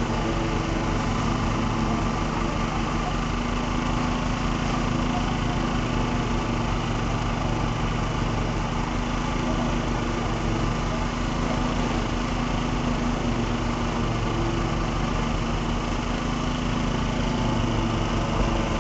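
An engine running steadily at constant speed, without a break or change in pitch, from machinery working the concrete pour.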